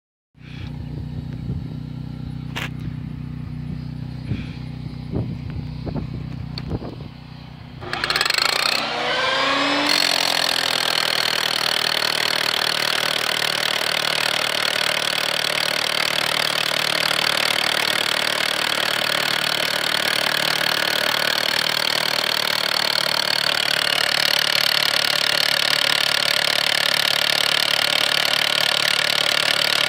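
Hilti TE 70-ATC rotary hammer drill with a 1 1/2-inch spiral bit starting up about eight seconds in, spinning up, then running steadily as it drills and hammers down through soil toward sandstone, with a steady high whine. Before it starts there is only a low hum and a few knocks.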